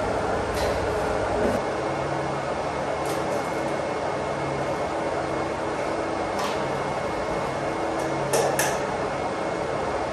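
Steady mechanical running noise of a water pump in a small pump house, with a few light clicks and clinks of gear being handled, a quick double click near the end.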